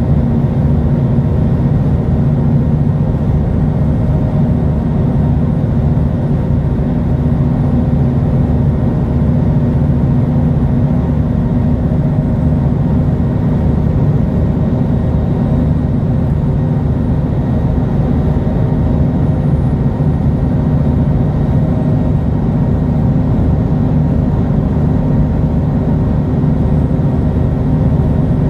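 MAN A23 Lion's City G articulated bus's diesel engine idling steadily while the bus stands still.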